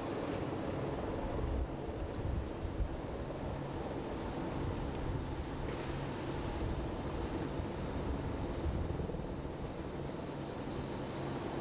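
Steady engine rumble with a low hum and a faint high whine.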